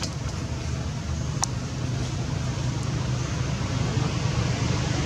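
Steady outdoor background noise: a low rumble with an even hiss over it, growing slightly louder, and a faint click about a second and a half in.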